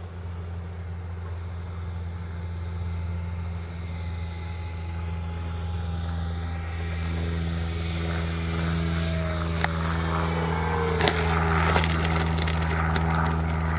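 Electric motor and three-blade propeller of a 1.47 m RC F4U Corsair model coming in to land, a whine that grows louder and falls in pitch, over a steady low hum. About eleven seconds in come a run of knocks and clatter as its fixed, sprung main gear touches down and rolls on grass.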